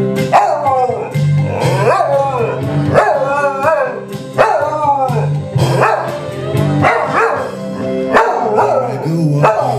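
A beagle howling along to a recorded guitar song, a run of howls that each rise and then fall in pitch, one every second or two, over the music.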